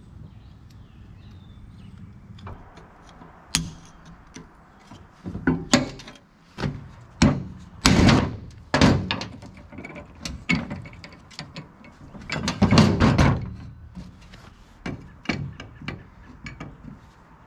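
Irregular hammer blows on a tractor drive shaft's yoke, knocking out the snapped U-joint: sharp metal strikes, some ringing briefly, starting a few seconds in and coming in bunches.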